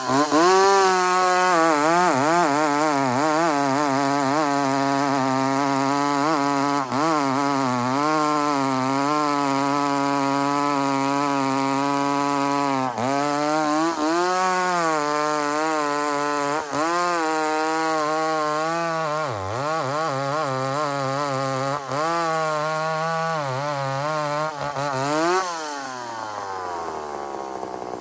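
McCulloch SP81 two-stroke chainsaw at full throttle, cutting through a big log under load, its pitch sagging now and then as it bogs in the wood. Near the end it revs up briefly and drops back to idle.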